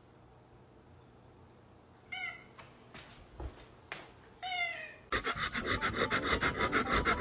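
A cat meows twice, short falling calls a couple of seconds apart. Then, about five seconds in, a loud, fast pulsing sound starts, several beats a second.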